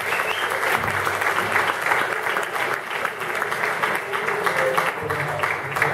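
Audience applauding after a speech, many hands clapping together.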